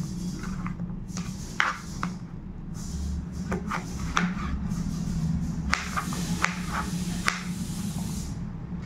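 Kitchen knife cutting bottle gourd on a plastic cutting board: irregular taps and clicks as the blade goes through the flesh and strikes the board, over a steady low hum.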